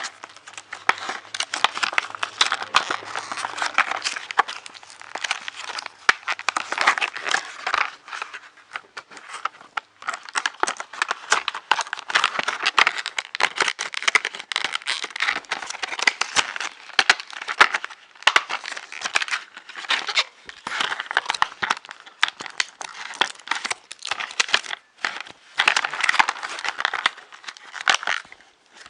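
Packaging crinkling and tearing as kit parts are unwrapped by hand, a continuous crackle of quick rustles with short lulls.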